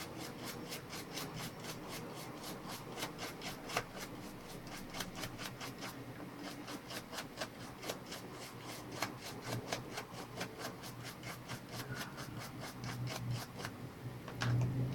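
A brush scrubbing a laptop circuit board wet with isopropyl alcohol, in quick even back-and-forth strokes of about four a second, to clear leftover solder flux.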